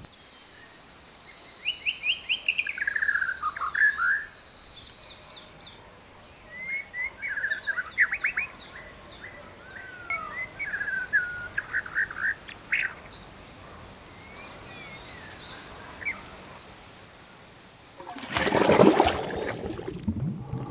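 Several birds chirping and singing in quick bursts of short rising and falling calls. Near the end, a loud rushing splash of water.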